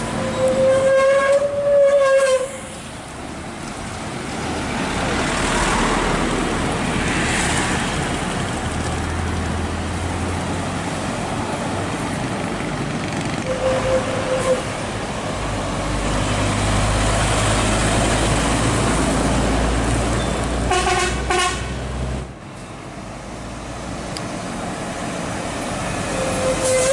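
Heavy-truck air horns blowing: a long steady single-note blast near the start, a short toot midway, a quick run of blasts about 21 seconds in, and another long blast near the end. Between them, the low running of heavy diesel engines as trucks pull past.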